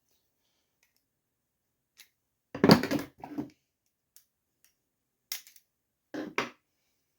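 Hard parts or tools clattering as they are picked up and set down: a loud rattling cluster about two and a half seconds in, then a few shorter knocks near the end.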